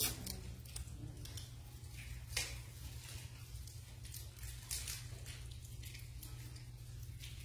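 Faint scattered clicks and taps of communion ware being handled on an altar, a few in all, over a steady low room hum.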